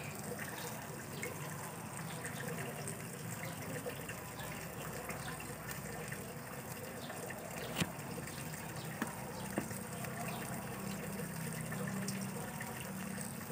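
Catfish sizzling in a wire grill basket over glowing charcoal: a steady hiss, with a few sharp pops in the second half, the loudest about eight seconds in.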